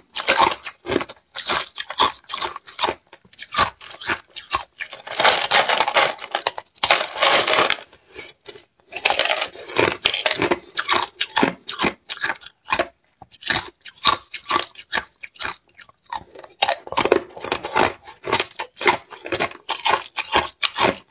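Chewing and crunching of thin, brittle sheets of frozen matcha ice: quick, irregular crackles throughout, with denser stretches of crushing about five and nine seconds in.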